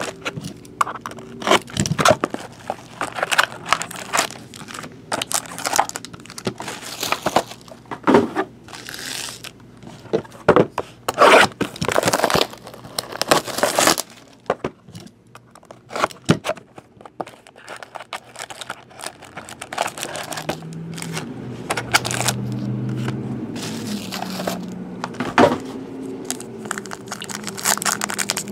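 Plastic wrap and foil trading-card packs crinkling and tearing as they are unwrapped and ripped open, in a run of short, sharp rustles that thin out about halfway through.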